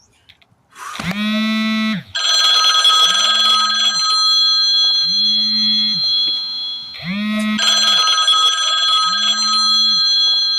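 Mobile phone ringtone sounding for an incoming call, starting about a second in: a low note repeats roughly every two seconds under steady high tones.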